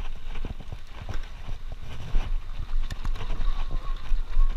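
Mountain bike rolling over a rough dirt trail, its frame and parts rattling with irregular knocks and clicks over the bumps, with a steady low wind rumble on the handlebar camera's microphone.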